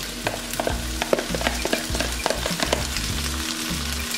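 Ackee and fried chicken pieces sizzling in a hot nonstick frying pan, with a string of light clicks and taps from a spoon as the ackee is scraped out of a plastic container into the pan.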